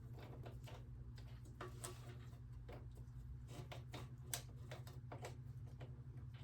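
Irregular light clicks and taps of hand work on motorcycle brake parts and tools, over a steady low hum, with one sharper click about four seconds in.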